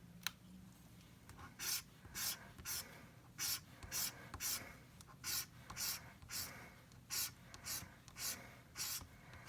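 Scratch-off lottery ticket being scratched, short scraping strokes about twice a second starting about a second and a half in, rubbing the latex coating off the play area.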